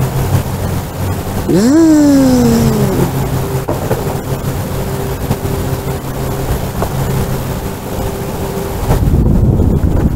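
A steady low engine hum, with a short pitched sound that rises sharply then slides down about two seconds in. Wind buffets the microphone from about nine seconds.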